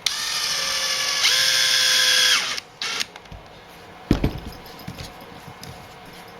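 Cordless drill-driver running a screw into an RC truck's rear shock mount: a motor whine that steps up to a higher speed about a second in and stops after about two and a half seconds. A short second burst follows, then a few knocks as parts are handled.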